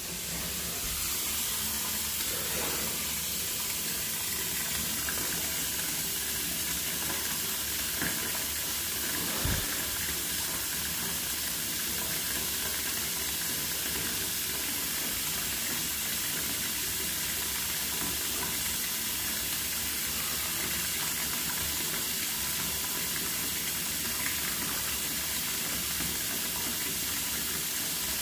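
Steady hiss of running water, starting suddenly and holding even throughout, with a soft bump about nine and a half seconds in.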